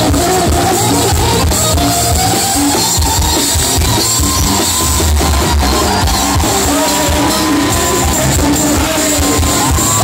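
Live rock band playing: drum kit, electric guitars and bass under a male voice singing a long, gliding melody line, heard loud from within the audience.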